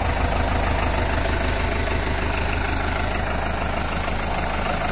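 Deutz-Fahr Agrolux 80 tractor's four-cylinder diesel engine idling steadily.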